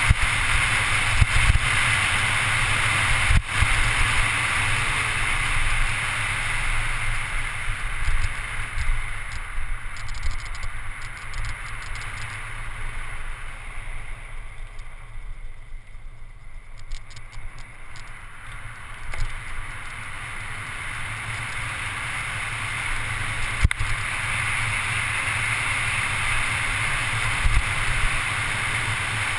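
Wind rushing over a bike-mounted GoPro camera's microphone, with tyre rumble from a Scott Scale 10 mountain bike descending fast on asphalt. It dies down for a few seconds in the middle as the bike takes a hairpin bend, then builds again, with a couple of sharp knocks from bumps.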